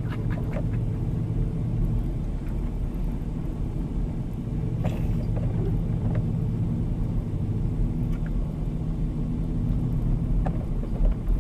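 Steady engine and road rumble heard from inside the cabin of a four-wheel-drive vehicle driving slowly on a snow-covered road.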